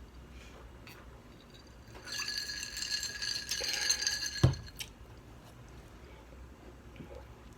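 About two seconds of clinking and rattling with a ringing edge, ending in one sharp thump.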